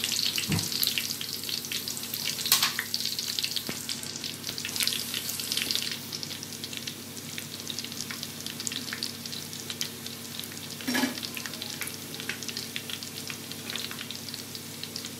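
Potli samosas deep-frying in hot oil on a low flame: a steady sizzling crackle, busier over the first six seconds, then settling a little quieter. One short knock about eleven seconds in.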